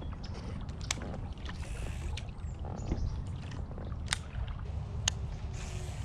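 Kayak moving on a creek as it turns: water sounds along the hull over a steady low rumble, with three sharp clicks, about a second in and twice near the end.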